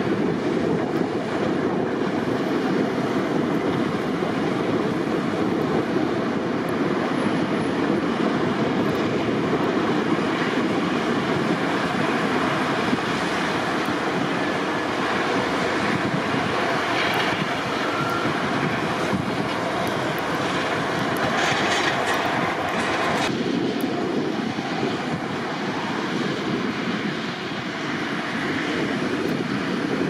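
Heavy snow-clearing machinery and vehicles running, a steady noise with no distinct events. A brighter hiss rises for a couple of seconds about three-quarters of the way through.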